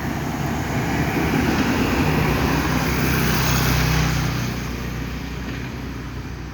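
A motor vehicle passing by: engine hum and road noise swell to a peak about two to four seconds in, then fade.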